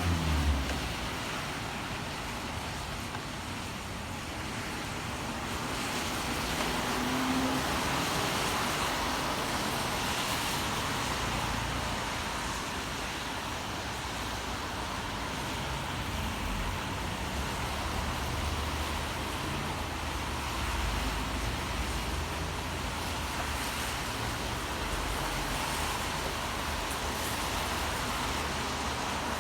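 Rain and city traffic on wet streets: a steady hiss with low engine rumble that swells and fades as vehicles pass. A heavy vehicle's engine tone dies away in the first second.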